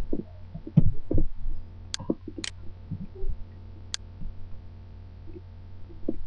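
Computer mouse clicking three times, sharp and separate, over a steady low hum from the recording setup. A couple of dull thumps come about a second in.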